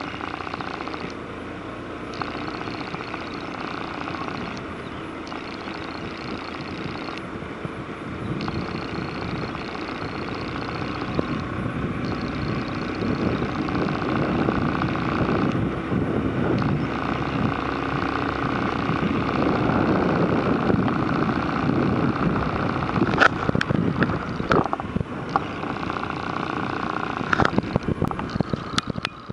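Motorcycle running along a road, heard from the moving bike with wind noise, growing louder over the first twenty seconds. A few sharp knocks come near the end.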